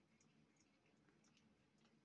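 Near silence: room tone with a few faint small clicks.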